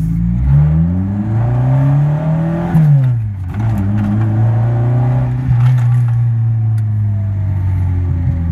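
Mitsubishi Colt A150's four-cylinder engine accelerating hard in power mode, heard from inside the cabin. The revs climb, fall away at a gear change about three seconds in, then climb again more slowly in the next gear.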